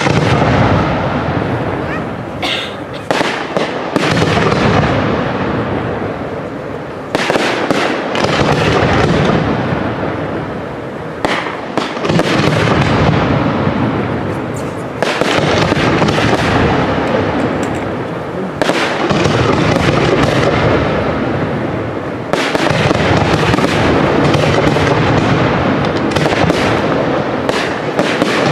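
Large aerial fireworks display: shells bursting one after another, a loud bang every few seconds, each followed by a long crackling, rolling echo that fades before the next.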